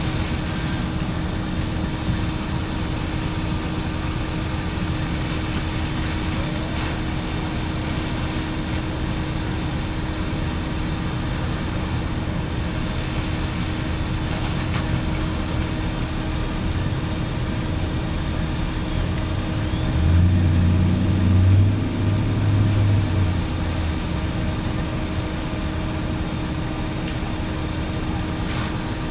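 Vehicle engine idling, a steady low hum with a constant drone. A deeper rumble swells for a few seconds about twenty seconds in.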